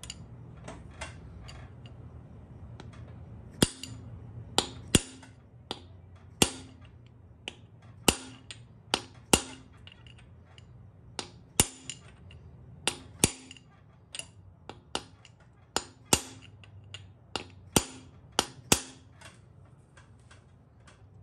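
Hammer striking a socket extension to drive a press-fit oil gallery plug into a Nissan VG30 engine block. A few light taps come first, then a couple of dozen sharp metal strikes with a short ring, irregularly spaced and varying in force, until the plug sits just past flush.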